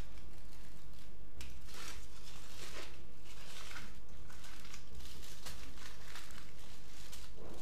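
Aluminium foil crinkling in irregular bursts as hands squeeze a foil-wrapped log and twist the foil tight at its ends.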